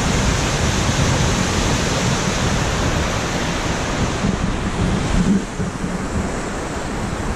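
Steady rush of Wairere Falls' water pouring over the rocks at the lip, mixed with wind buffeting the microphone; it eases slightly a little past the middle.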